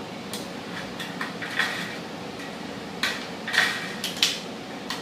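Sheet-metal plaster ground being notched: a series of sharp metallic clicks and scrapes, the loudest near the end.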